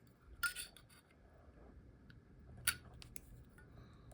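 Faint metallic handling sounds from a butane lighter insert and its metal Zippo case as a small metal tab on the insert is bent: a short scrape about half a second in, then a few light clicks near three seconds in.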